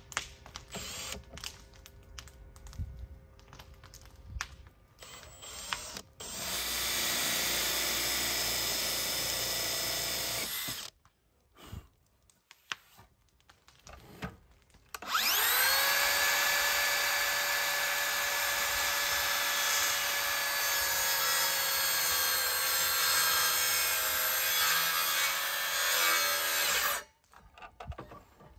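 Cordless drill boring into a wooden window sill with a half-inch Forstner bit for about five seconds, after some scattered clicks and knocks. After a pause, a Makita cordless miter saw whines up to speed and cuts through the sill for about twelve seconds, then stops abruptly.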